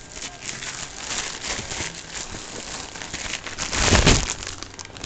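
Clear plastic bag crinkling as a packaged cable is handled, with a louder rustle and bump about four seconds in.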